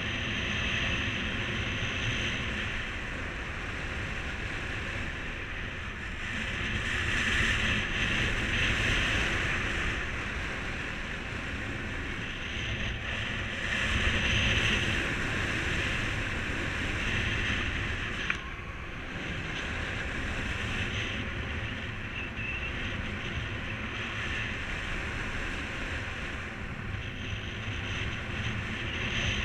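Wind rushing over the microphone of a paraglider pilot in flight, swelling and easing in gusts, with a single small click about two-thirds through.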